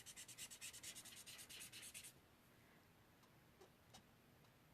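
Felt-tip blender pen scrubbed rapidly back and forth, about ten scratchy strokes a second, working ink off. It stops about two seconds in, followed by a few faint taps.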